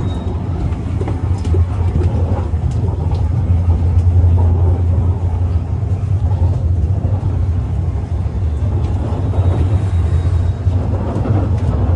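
Passenger train running: a steady, loud low rumble with scattered clicks, which cuts off sharply near the end.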